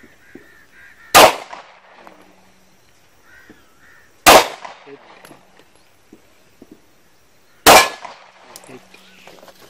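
Three single shots from a Glock pistol fired one-handed with the left hand, about three seconds apart. Each shot is a sharp crack with a short echo.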